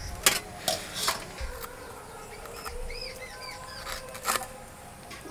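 Small latha (spotted snakehead) fish being scraped and cut against a boti blade: a few sharp scrapes and clicks, with a short run of high chirps near the middle.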